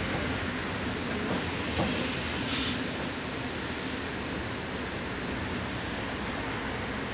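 Steady interior running noise of an articulated city bus. A thin, high-pitched squeal sets in about three seconds in and holds for about two seconds.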